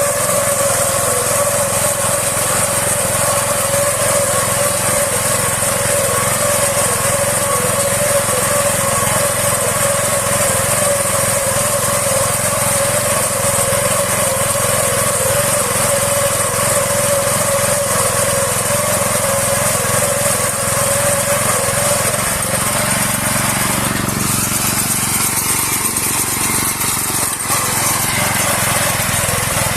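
Mini combine harvester running steadily while harvesting rice, with a constant mechanical whine that fades out about three-quarters of the way through while the machine keeps running.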